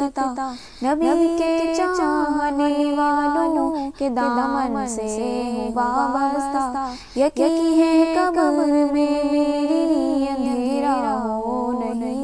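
A solo voice singing a naat unaccompanied: long drawn-out notes that step up and down in pitch, in three phrases with short breaks between them.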